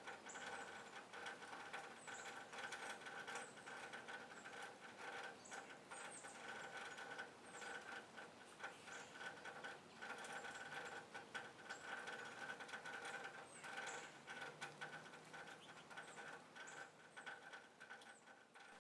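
Faint, high, short chips of small birds repeating every second or so, over a steady faint hum and scattered light clicks.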